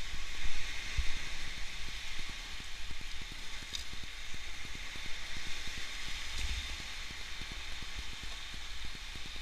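Steady hiss of sea surf washing on the beach, with wind rumbling on the microphone.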